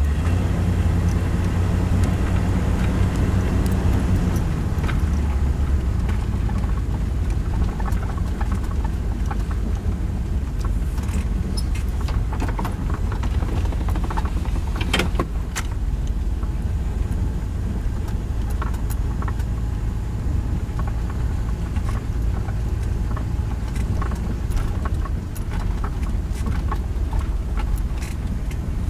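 Vehicle driving slowly on a sandy dirt road, heard from inside the cab: a steady low rumble of engine and tyres, with scattered clicks and rattles, one louder about halfway through.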